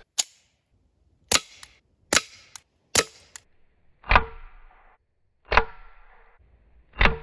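Suppressed .22 LR pistol firing CCI Quiet-22 subsonic rounds: a string of short, sharp cracks about a second apart, the later ones trailing off in a brief ringing tail.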